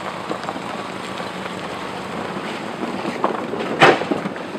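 Subaru crawling down a rough trail with steady engine and driving noise, then a brief loud knock about four seconds in as the underbody touches the ground, a contact that sounded minor.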